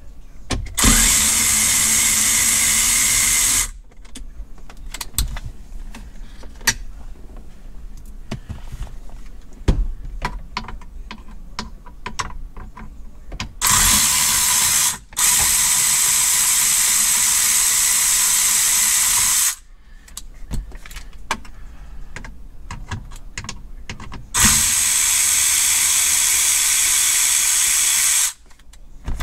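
Cordless power driver whirring in three long steady runs, the middle one broken briefly, as it backs out T15 Torx screws; small clicks and taps of handling between the runs.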